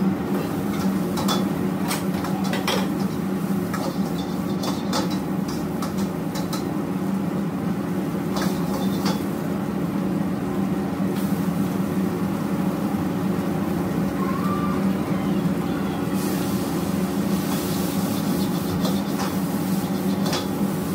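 Commercial gas wok range and its kitchen exhaust running with a steady drone, while a metal ladle clanks and scrapes repeatedly against a steel wok during a stir-fry, with sizzling food.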